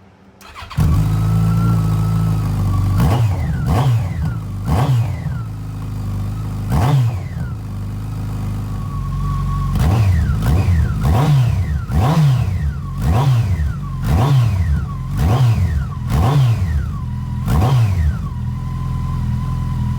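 Yamaha FJR1300's inline four-cylinder engine starting about half a second in and idling, then revved in a dozen or so quick throttle blips, each rising and falling back to idle, heard through Delkevic oval slip-on silencers with the baffles in.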